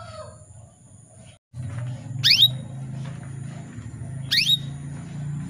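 Female canary calling: two short, rising whistled call notes about two seconds apart, over a steady low hum. It is the call a female in breeding condition gives to draw a male.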